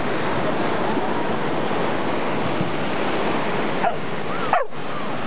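Steady wash of ocean surf, with wind on the microphone. A couple of short squeaky sliding sounds about four seconds in.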